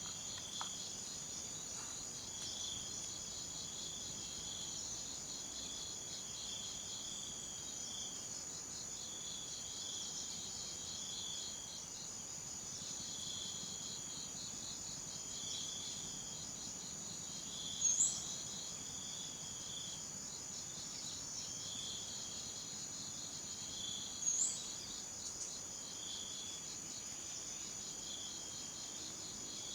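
Jungle night ambience: a steady, high-pitched drone of crickets and other insects with a chorus of pulsing chirps repeating about once a second. Twice, about six seconds apart, a short rising call stands out as the loudest sound.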